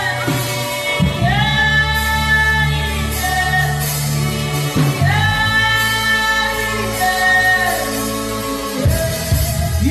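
A man humming worship melodies in long held notes that slide into pitch, over a steady low sustained musical backing.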